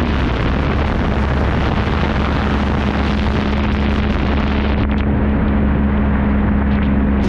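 Motorcycle engine running at a steady cruising speed, its note dipping slightly at the start and then holding level, with wind rushing over the microphone.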